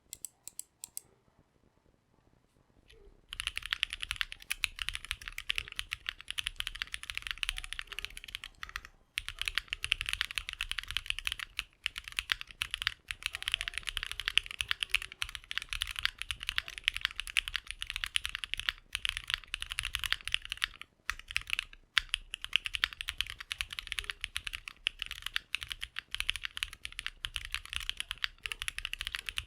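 Typing on a custom 65% mechanical keyboard with lubed and filmed AEBoards Snag switches, GMK ABS keycaps, an aluminium plate and an O-ring mount. After a few faint clicks, a dense run of keystrokes starts about three seconds in and goes on with only brief pauses.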